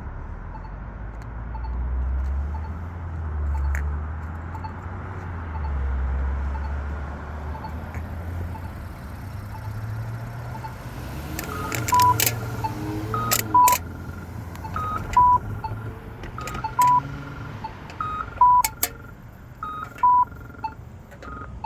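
Polara EN4 accessible pedestrian signal ticking its locator tone about twice a second while traffic passes. About eleven seconds in, its walk indication starts: loud sharp chirps with short electronic beeps, repeating about every one and a half seconds, signalling that the walk sign is on.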